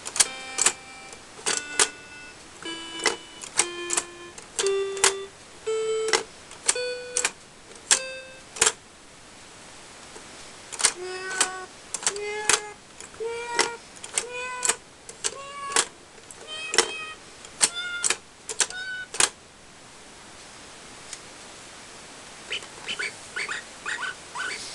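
Battery-powered toy piano playing single notes one key at a time, climbing a scale, then a second climbing run after a short gap; fainter, quicker notes come in near the end. The piano is being checked after its broken battery-positive lead and a broken wire between its main and sub circuit boards were repaired.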